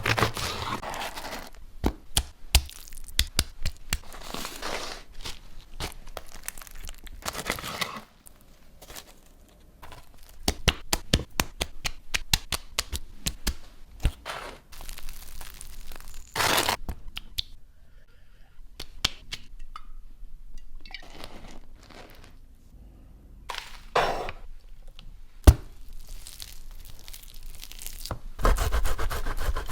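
Crisp crackling, tearing and knocking of a sandwich being handled and cut, with sharp clicks and longer crunchy rasps. There is a quieter stretch about eight seconds in.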